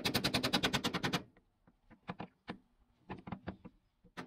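Rapid hammer blows on metal held in a bench vise, an even run of about ten strikes a second that stops about a second in. Afterwards there are a few scattered light metallic clicks and knocks.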